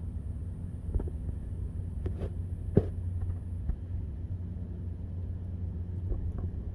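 A steady low rumble with a few short, sharp sounds on top, the loudest about three seconds in.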